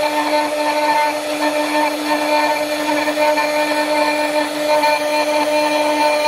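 CNC router spindle running at speed and carving a relief design into a wooden board: a steady whine with the rasp of the bit cutting wood underneath.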